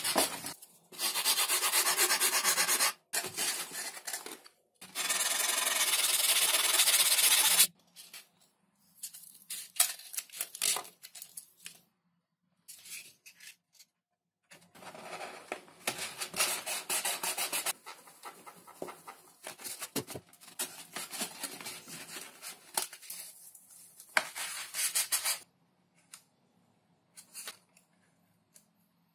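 Hands rubbing and pressing masking tape onto XPS foam sheets of a model plane fuselage. Two long, loud rubs come in the first eight seconds, then shorter scattered rubbing and scratching, dying down to a few faint ticks near the end.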